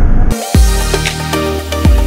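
Train running noise that cuts off about a third of a second in, replaced by electronic background music with steady synth tones and two deep bass hits that drop in pitch.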